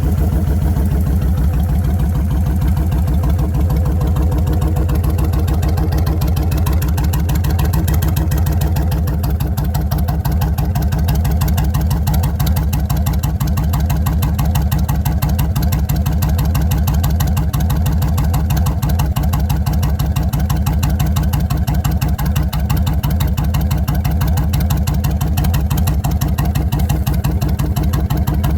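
Kawasaki Vulcan 1600 V-twin motorcycle engine idling steadily, heard through 2.5-inch exhaust pipes with home-made baffles: a loud, even, low exhaust pulse.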